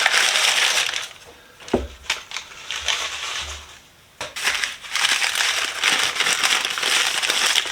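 Packing material being rustled and crinkled by hand while tools are pulled out of a box, with one short knock about two seconds in; the crinkling stops for a couple of seconds, then resumes.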